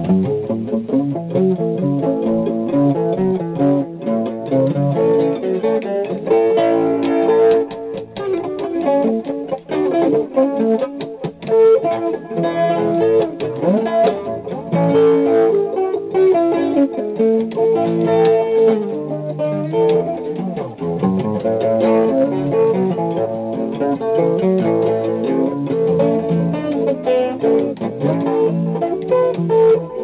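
Guitar being picked in an instrumental jazz-style tune, a continuous run of single notes and chords.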